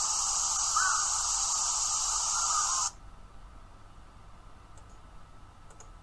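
Steady hiss that cuts off suddenly about halfway through, leaving faint quiet background with a couple of tiny high ticks near the end.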